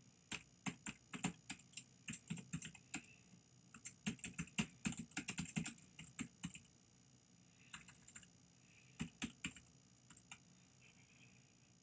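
Typing on a computer keyboard: irregular runs of key clicks, quickest around the middle, then thinning to a few scattered strokes near the end.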